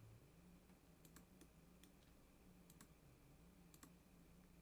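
Faint, scattered clicks of a computer keyboard and mouse against near silence, a few of them in quick pairs.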